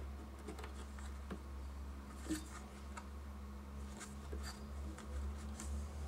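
Faint scattered clicks and scraping of hands handling a RAM stick and the memory assembly while reseating it in the slot of a 27-inch iMac, over a low steady hum.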